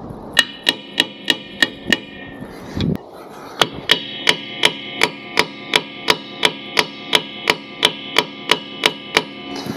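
Hammer blows on a steel punch driven against a broken-off fitting in a truck's air tank, trying to knock it out. Each blow rings like struck metal, about three a second: a run of six, a short pause, then a long steady run of about seventeen more.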